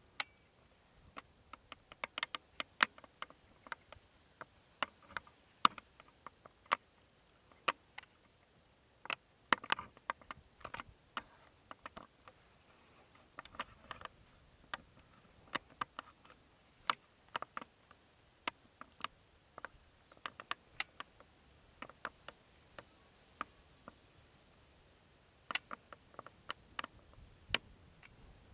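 Irregular sharp clicks and ticks, some single and some in quick clusters of two or three, with a lull of a couple of seconds near the end.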